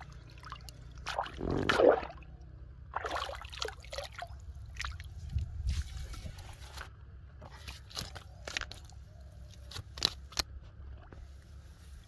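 A hooked carp splashing at the water's surface as it is pulled out on the line, loudest about two seconds in, with another splash a second later. Then scattered sharp clicks and knocks as the fish hangs from the line and is laid down on wet mud.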